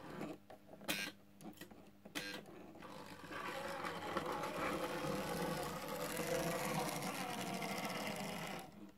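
Märklin 3031 BR 81 model steam locomotive running on metal track: its electric motor and wheels make a steady whir that grows louder about three seconds in and stops suddenly near the end. A few sharp clicks come in the first three seconds.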